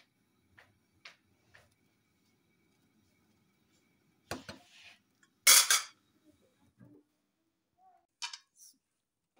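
A metal slotted spoon clanking and scraping against a metal pot of boiling rice. There are a few light taps at first, then two loud clatters about four and five and a half seconds in, and a shorter one near the end.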